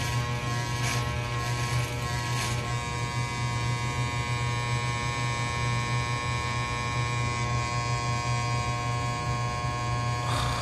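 Corded electric hair clippers running with a steady buzzing hum.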